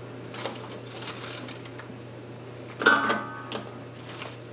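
Light clicks and rustling of snap peas being scooped by hand from a wet stainless-steel colander and dropped into an enamelled steamer basket, with one slightly louder knock about three seconds in.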